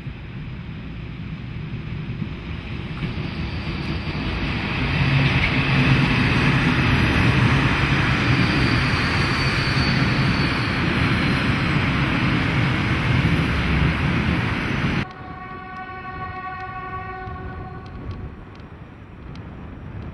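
Three Deutsche Reichsbahn V100 (class 112) diesel-hydraulic locomotives passing close with a train of wagons, their twelve-cylinder engines working with a steady low drone that swells to its loudest about five seconds in. The sound cuts off about fifteen seconds in, and a locomotive horn sounds for a few seconds, more distant.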